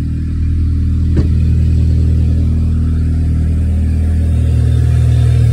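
Audi A4 turbocharged four-cylinder TFSI engine running at a cold-start idle, a steady low engine note that rises slightly about half a second in and again near the end, with one brief click about a second in. The downpipe has just been hand-machined and refitted to cure an exhaust leak.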